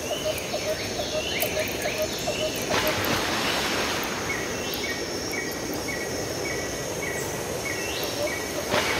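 Sea surf washing on a rocky shore, a steady rushing that swells suddenly about three seconds in, with birds calling over it: falling high notes, then a run of short repeated chirps about two a second. Under it a regular low chirping pulse about three times a second.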